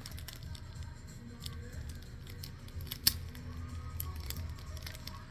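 Scissors snipping during paper crafting: a scatter of small, irregular clicks, with one sharper click about three seconds in.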